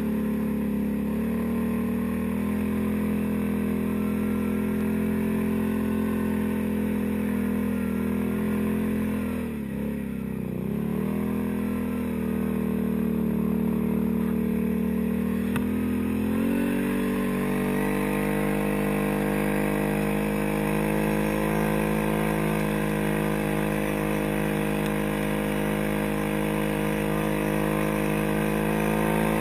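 ATV engine running under way on a quad fitted with snow tracks, a steady drone. About ten seconds in the engine speed dips briefly and comes back, and a little past halfway it rises and holds at a higher speed.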